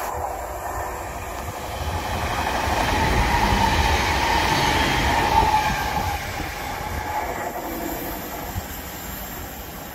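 Västtåg electric passenger train passing through a station. It grows louder as it goes by, peaks a few seconds in, then fades as it moves away. A steady high tone runs through the loudest part.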